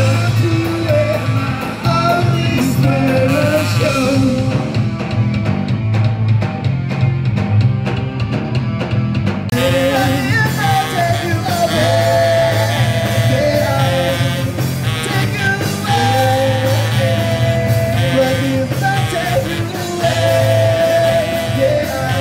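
Live rock band playing, heard from the audience: a singer over electric guitar, bass and drums.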